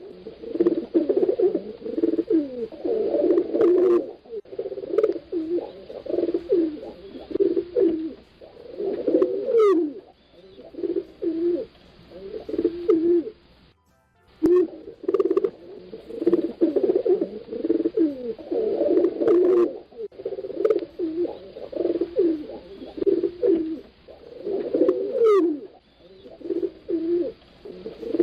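Domestic pigeons cooing: low, wavering coos repeated in phrases, with a short pause about halfway through.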